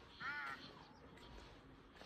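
A crow gives a single short, harsh caw.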